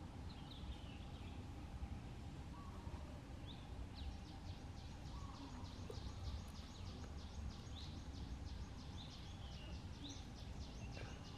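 Outdoor background with a steady low rumble and small birds chirping: a few short high chirps at the start, then a fast run of high, rapid chirps through the middle that stops shortly before the end.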